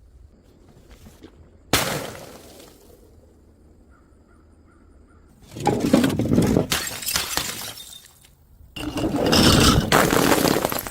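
Glass breaking: one sharp smash with a ringing tail about two seconds in, then two longer stretches of clattering, crunching breakage, the first starting about five and a half seconds in and the second about nine seconds in.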